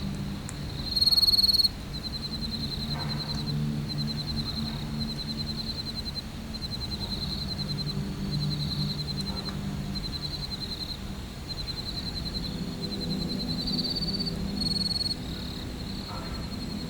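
Crickets chirping in rapid, repeated high trills, with a steady low hum beneath. About a second in, a louder high-pitched tone lasts under a second.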